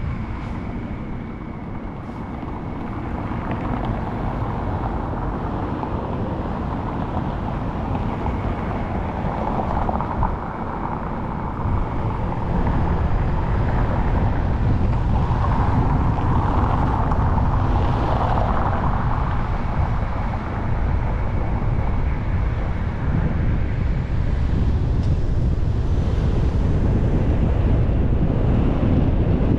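Car driving with steady tyre and wind noise. It is quieter a second or two in, then builds as the car picks up speed.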